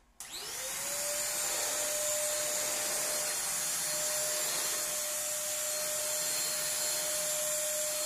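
Kaisavilla corded stick (push-rod) vacuum cleaner running on a tiled floor. Its motor whine rises quickly a fraction of a second in and then holds a steady pitch over the rush of the suction.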